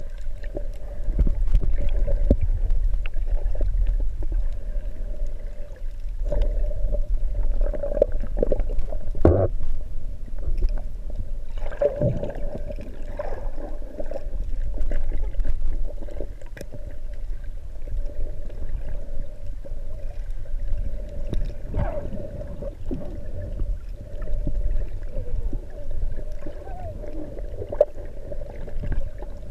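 Muffled underwater sound picked up by a GoPro camera in its waterproof housing: a constant low rumble of water moving against the camera, with a steady drone, scattered clicks and brief gurgling swells as the snorkelers and bubbles move around it.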